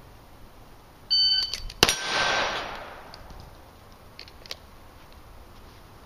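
Electronic shot-timer beep, then about three-quarters of a second later a single pistol shot from a draw (a 0.73-second draw to the first shot), followed by the ring of the steel mini popper target being hit.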